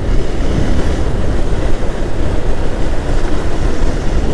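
Steady rushing noise of a motorcycle on the move: wind over the microphone and road noise with the Honda CB Hornet 160R's engine beneath, all heavy in the low end.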